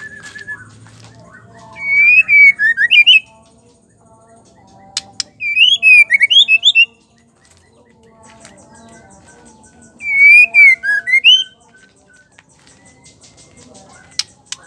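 White-rumped shama giving three loud bursts of rapid whistled notes, each about a second and a half long, the notes sweeping up and down in pitch. Faint rapid ticking comes between the bursts.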